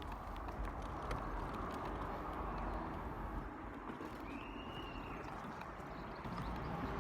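Steady outdoor wind noise with a low rumble, footsteps as a few light clicks in the first second or so, and a single short bird call, rising then falling, about four and a half seconds in.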